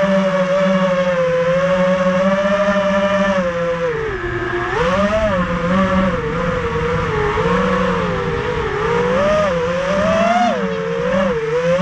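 Racing quadcopter's four Racerstar 2205 brushless motors spinning DAL 5045 three-blade props, a loud steady whine whose pitch follows the throttle. It dips sharply about four seconds in, then rises and falls repeatedly.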